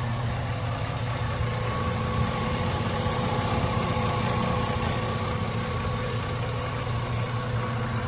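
Jeep V6 engine idling steadily, heard up close under the open hood: an even low hum with a faint constant whine above it.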